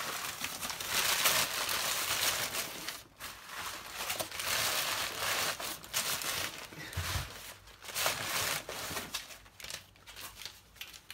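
Crumpled newspaper packing rustling and crinkling as hands push it down into a cardboard box: loudest in the first few seconds, then in shorter, fainter rustles that die away toward the end.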